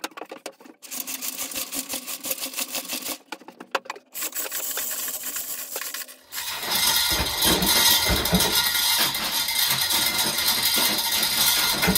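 Manual chain block hoist being hauled: a fast, even run of ratchet clicks as the hand chain runs over the wheel, broken by two short pauses. About six seconds in, a louder, continuous jangling rattle takes over.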